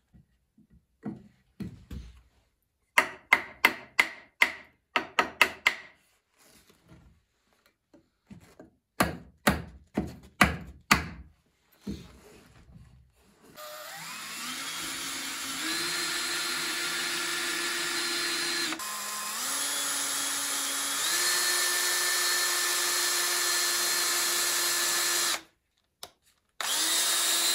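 Cordless drill-driver drilling pilot holes in wooden bars. The motor whine runs for about twelve seconds, stepping up and down in pitch with the trigger, and after a short pause it runs again briefly. Before that comes a series of sharp knocks in quick runs.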